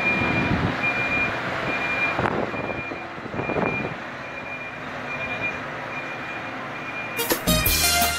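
Backhoe loader's diesel engine running while its reversing alarm beeps at one pitch in an even rhythm, the engine surging twice. Music starts near the end.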